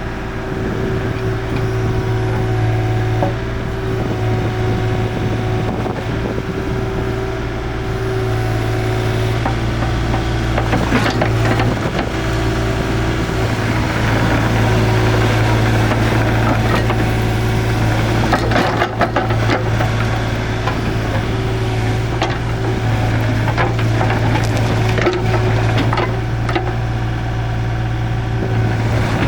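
Kubota KH-024 mini excavator's diesel engine running steadily, with irregular knocks, cracks and scraping from the machine at work.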